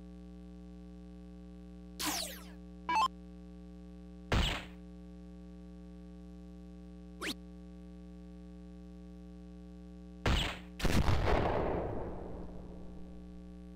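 Electronic soft-tip dartboard sound effects over a steady hum: a falling swoosh about two seconds in, a few short hit sounds as darts score, then a longer effect near the end that fades over about two seconds as the board awards a Low Ton.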